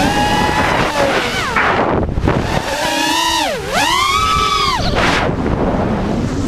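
A 5-inch FPV freestyle quadcopter's motors and propellers whining, recorded by the GoPro on board. The pitch swoops down and back up with the throttle, dipping lowest about halfway through and climbing again near the end, over a rushing noise.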